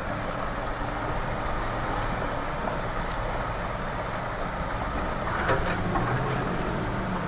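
Jeep driving slowly over a rough gravel off-road trail, heard from inside the cab: steady engine and tyre noise with a few light knocks.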